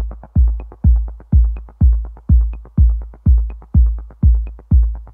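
Electronic dance music: a heavy kick drum on every beat, about two beats a second, with quick hi-hat ticks between the beats.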